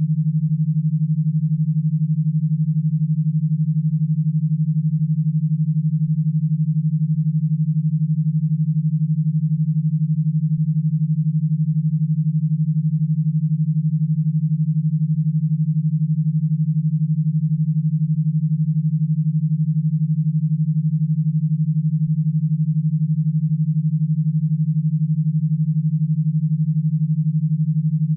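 Synthesized electro-stimulation signal: one low tone held at a steady pitch and pulsing rapidly, a 12 Hz pulse pattern made to drive e-stim electrodes rather than to be listened to as music.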